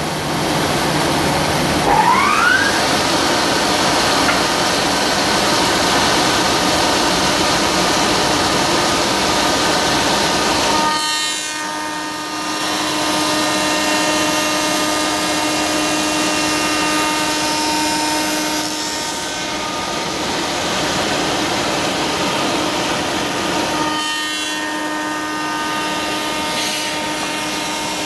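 Spindle shaper running a glue joint cutter, with a power feeder driving a wooden board through the cut: loud, steady machining noise with a constant hum. There is a brief rising whine about two seconds in, and the sound changes about eleven and again about twenty-four seconds in.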